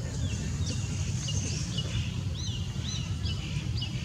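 A bird calling in a quick series of short, high chirps, about three a second, over a steady low rumble.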